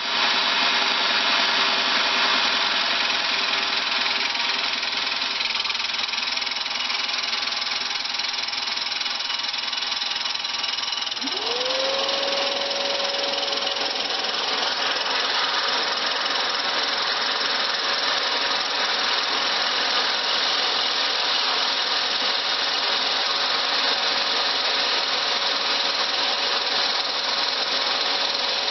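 Milling machine driving a diamond cup grinding wheel across an old sharpening bench stone, a steady grinding noise as the stone's surface is skimmed flat. About eleven seconds in, a motor whine rises quickly and then holds at one steady pitch.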